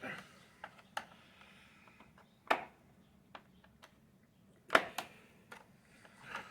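A screwdriver working at a stubborn screw in a vacuum cleaner's housing, giving scattered clicks and knocks. There is a sharp knock about two and a half seconds in, and the loudest pair comes near five seconds.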